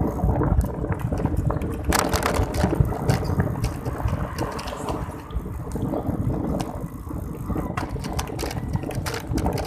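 Wind buffeting a handheld phone's microphone on a moving bicycle, a steady low rumble, with scattered clicks and rattles that bunch up near the end.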